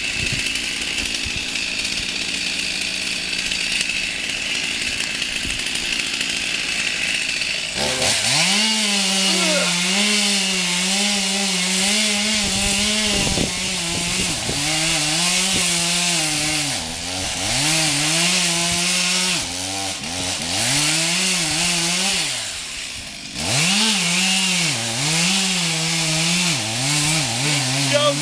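Two-stroke chainsaw cutting into a tree. After about eight seconds of a steadier high whine, it runs at full throttle, its pitch sagging and recovering again and again as the chain bites into the wood. It drops off briefly near the end, then revs up again.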